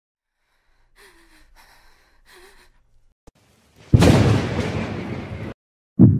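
Faint, shaky breathing, then about four seconds in a sudden loud boom with a hissing tail that fades over about a second and a half. Near the end a deep double thump begins, a heartbeat sound effect.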